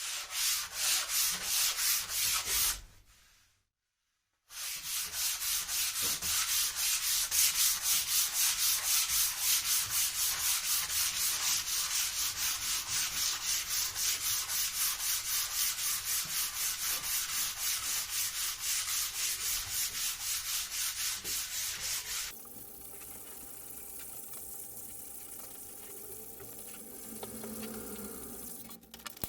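Sanding a polyurethane-varnished tabletop, a loud scratchy rubbing that pulses in a quick, even rhythm of about four strokes a second, with a short pause near the start. About three-quarters of the way through it stops and a quieter, lower sound with a faint hum takes over.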